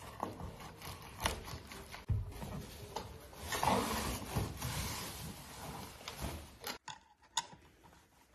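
Cardboard box rubbing and scraping, with scattered knocks, as a folding metal-frame bed backrest is unpacked from it; near the end a few sharp clicks as the frame is handled.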